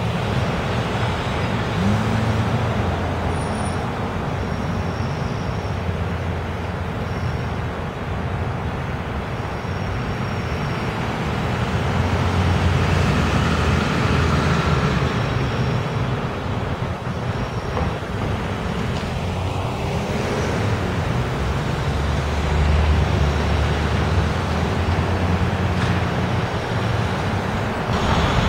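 Street traffic with a city transit bus's engine running at low speed as it inches along in stop-and-go traffic, and cars passing close by. A steady low hum under a constant road noise.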